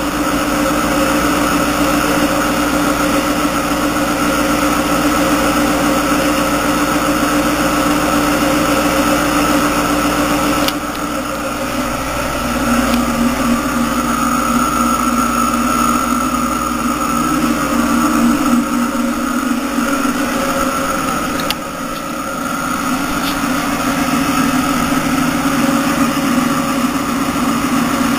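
Whisper 10-30i internal aquarium filters running: a steady motor hum under a rushing hiss. The tone of the hum shifts abruptly twice, about a third and two-thirds of the way through.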